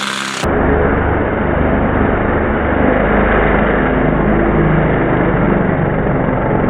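OS Max .40 model glow engine running steadily on a scaled-up Flingthing helicopter. About half a second in the sound abruptly turns duller and muffled.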